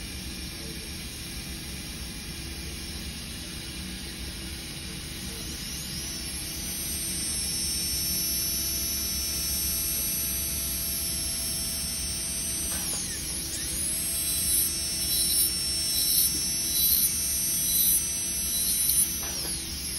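Straight dental handpiece spinning a bur with a steady high whine that starts about six seconds in, dips and picks back up twice, and gets louder in short bursts as the bur grinds a polycarbonate crown form.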